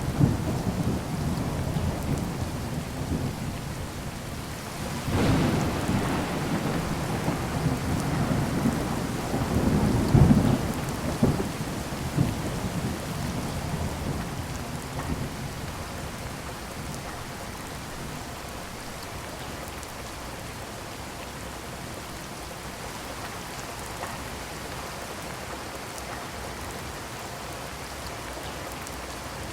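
Heavy rain falling steadily with rolling thunder. A thunderclap breaks out about five seconds in and another around ten seconds, each rumbling away, and by about halfway the thunder has died out, leaving only the steady hiss of the rain.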